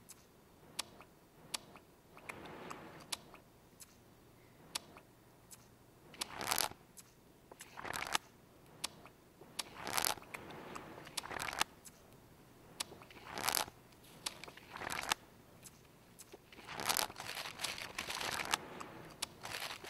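Paper being crumpled and torn close up, in repeated short, loud rustling bursts. In the first few seconds there are sharp, regular ticks about once a second.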